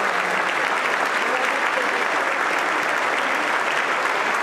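Concert audience applauding steadily, a dense, even clapping with no let-up.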